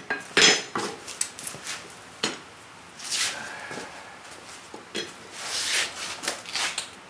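Steel clanking and scraping at a blacksmith's anvil: a hammer knock about half a second in, then scattered clinks and two longer scrapes as the tongs and the hot steel piece are handled, with a few more knocks near the end.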